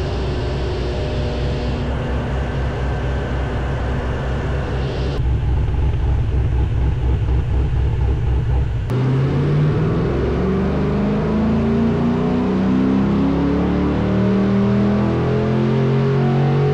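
Cammed 6.0-litre L98 V8 of a Holden VZ SS ute running on a chassis dyno. It runs steadily at first, then, from about nine seconds in, it pulls louder with its pitch rising slowly and steadily, as in a dyno run.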